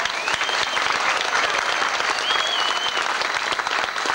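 Crowd applauding: dense, steady clapping from many hands after a speech.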